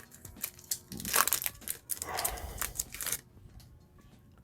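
Crinkling and rustling of a foil trading-card booster pack wrapper being handled, in a quick run of crackles that fades out about three seconds in.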